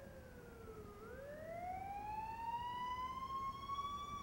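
Faint wailing siren, its pitch sinking to a low point about a second in, then rising slowly and starting to fall again near the end.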